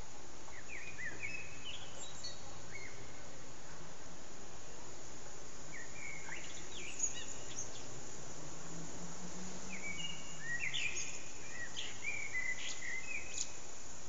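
Common blackbird singing three separate phrases of low fluting notes that break into high, squeaky twitters, over a steady hiss.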